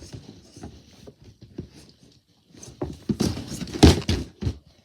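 Knocks and clatter of a stuck drawer being worked back into place, with a short pause and then a burst of bumps, the loudest bang about four seconds in.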